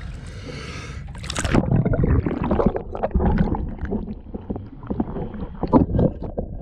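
Water splashing, then a loud splash about a second and a half in as a swimmer ducks under. After that comes muffled underwater gurgling and bubbling with scattered clicks, heard from beneath the surface.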